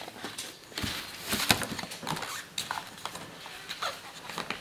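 Cardboard sleeve of a Play-Doh four-pack being handled and pried open, with rustling and irregular light knocks of the plastic tubs against the box and table. The sharpest knocks come about one and one and a half seconds in.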